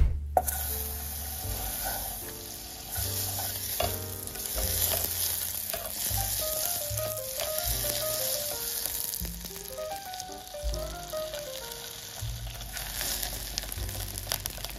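Butter sizzling and foaming as it melts in a hot nonstick pot, a steady hiss, with a silicone spatula stirring and scraping the pan. A sharp thump right at the start.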